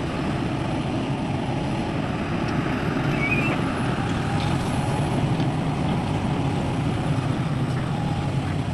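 Heavy diesel engine of an excavator or dump truck running steadily under load, a dense low rumble with no pauses.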